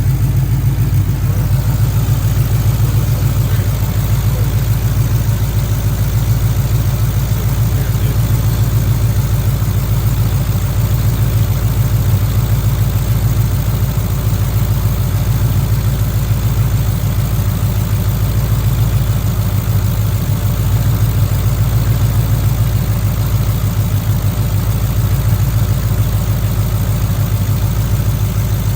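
Cammed V8 of a Ford Crown Victoria idling steadily after a fresh oil change.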